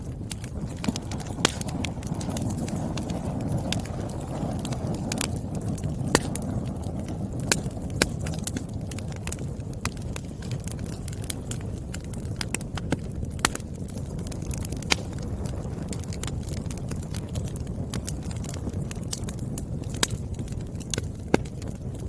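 Wood fire burning in a fireplace: a steady low rumble of flames with sharp crackles and pops of burning firewood every second or two.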